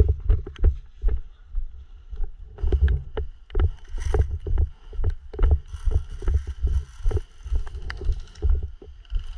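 Handling and movement noise: a rapid, irregular run of low thumps and knocks with rustling. A faint steady high whine joins about halfway through.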